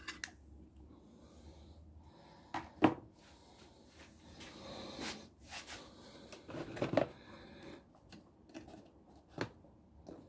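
Handling noises of test leads and wire clips being moved and connected on a tabletop: several sharp clicks and knocks, the loudest about three seconds in, with a short rustle around the middle.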